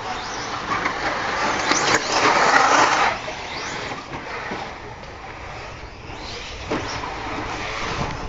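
Radio-controlled cars racing on a dirt track, their motors whining and tyres scrabbling, loudest around two to three seconds in.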